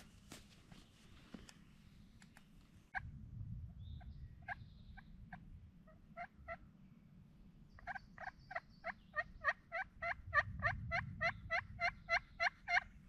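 Turkey yelps: a few scattered yelps from about three seconds in, then a fast, even run of yelps, about four a second, from about eight seconds in until just before the end.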